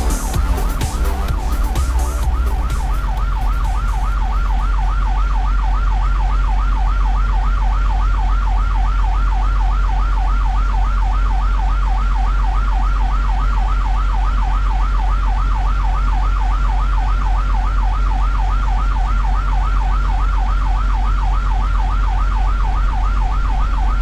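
Emergency vehicle siren in a fast yelp, its pitch rising and falling several times a second at a steady level, over a constant low rumble.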